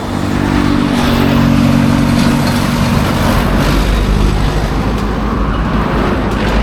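A motor vehicle's engine running with road noise, growing louder about a second in and then holding steady.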